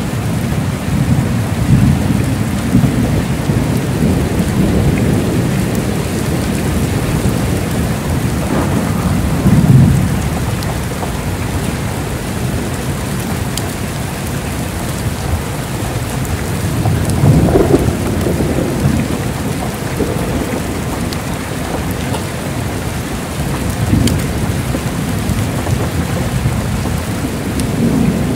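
Heavy rain falling steadily, with low rumbles of thunder rolling underneath; the thunder swells louder about a third of the way in and again a little past the middle.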